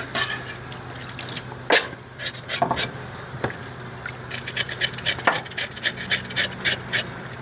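Kitchen knife blade scraping the singed skin of a piece of wild boar in repeated short strokes, cleaning off the charred hair and dirt, under a steady stream of tap water running into a stainless steel sink. The strokes come in quicker runs from about halfway on.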